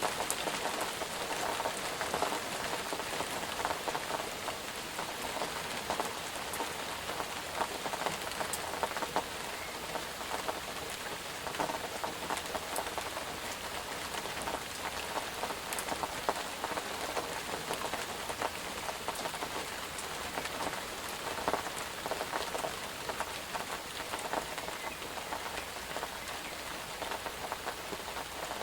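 Steady rain falling on a hard surface, a dense even patter with many separate drops ticking through it.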